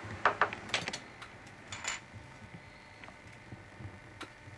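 Light taps and clicks of a putty knife and doll parts being handled on a wooden workboard: a quick cluster in the first second, another about two seconds in, then a few faint ticks.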